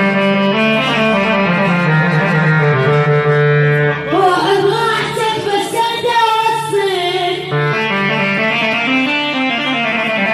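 Arabic song by a male singer: an instrumental backing of held notes, with a sung vocal phrase from about four seconds in to about seven and a half seconds.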